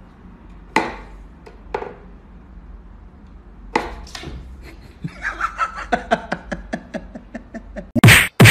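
Wooden knocks and clacks from a cat's whack-a-mole toy box as its wooden pegs are pushed and the cat paws at the pop-up mouse. This is followed by a run of quick repeated pulses for a couple of seconds, and then by a few loud whacks near the end.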